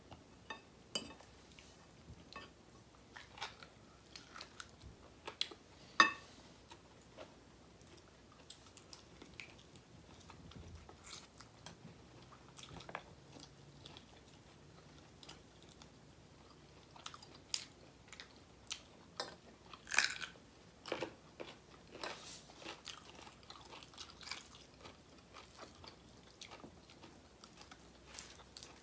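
Close-up mouth sounds of people eating by hand: chewing and biting with scattered crisp crunches and sharp clicks. The loudest snaps come about six seconds in and again about twenty seconds in.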